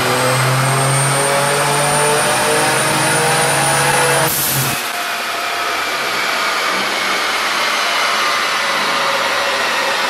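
Turbocharged Hyundai Genesis Coupe engine on a chassis dyno in a full-throttle pull, its pitch rising steadily for about four seconds. The pull ends with a short burst of hiss, and the engine note falls away, leaving the steady rush of the blower fan cooling the car.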